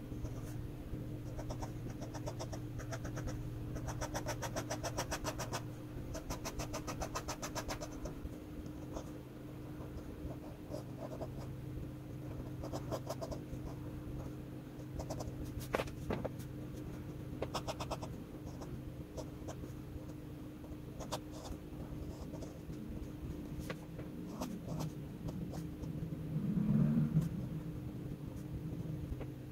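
Fountain pen with an ultra-flex nib scratching on sketchbook paper in runs of quick, even hatching strokes, over a steady low hum. A brief low rumble sounds near the end.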